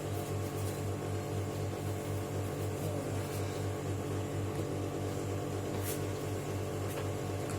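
Steady low electrical or mechanical hum that pulses about five times a second, with a few faint clicks.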